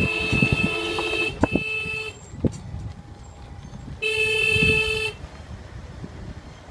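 Car horn sounding twice: a steady blast of about two seconds, then a shorter one of about a second, with the car's engine and road noise underneath.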